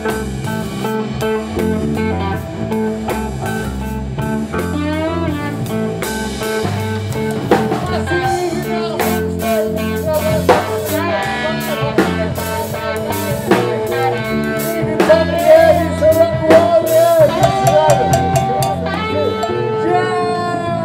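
A band jamming a bluesy rock groove on guitar and drum kit. Steady drum and cymbal hits run under guitar lines with bent, wavering notes in the middle part.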